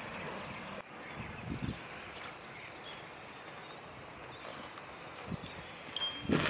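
Footsteps on gravel and a few light knocks over a quiet outdoor background, with a short metallic clink near the end.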